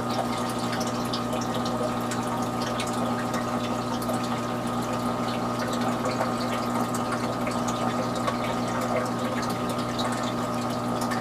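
Water pump running steadily: a constant hum with water trickling over it.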